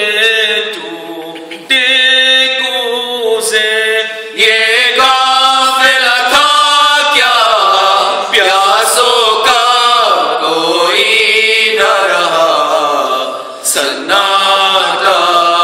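Men's voices chanting an Urdu noha, a Shia mourning lament, unaccompanied, in long sung lines whose pitch wavers.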